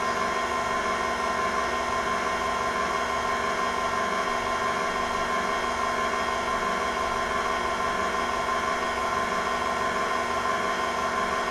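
KitchenAid stand mixer running at a steady speed, its motor humming with a constant whine as the beater turns through banana bread batter in the steel bowl.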